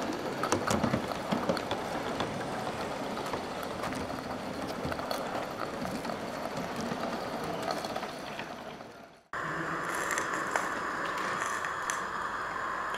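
G-gauge model steam-outline locomotive and coach running along the track: a steady mechanical running sound with scattered wheel and rail clicks, fading out. After a cut about nine seconds in, a steady high hiss comes in as a custom Shay model locomotive runs.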